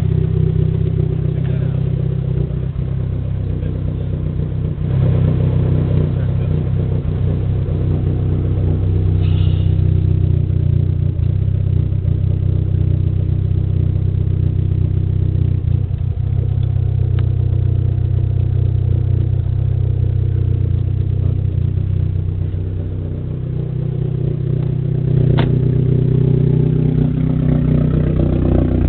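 Heavily modified, cammed Dodge SRT-4's turbocharged 2.4-litre four-cylinder engine running with a steady, deep drone, heard from inside the car. The engine note steps up about five seconds in, sags a little past twenty seconds and climbs again a few seconds later.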